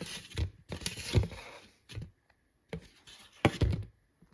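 Handling noise: a series of knocks and scrapes from objects being moved about, loudest about a second in and again about three and a half seconds in.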